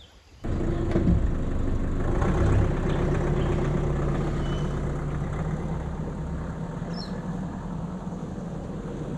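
Nissan Navara ute's engine running as the vehicle drives off across grass, its sound slowly fading as it moves away.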